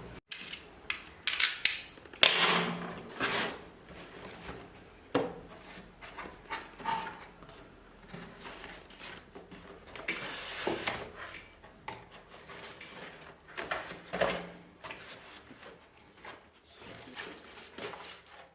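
A product being unpacked by hand: irregular knocks, clicks, scrapes and rustles of packaging and a lamp being handled, loudest in the first few seconds.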